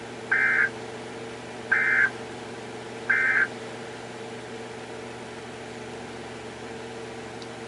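Emergency Alert System end-of-message (EOM) digital data bursts: three identical short, buzzy chirps about 1.4 seconds apart, marking the end of the alert. A steady low hum runs underneath.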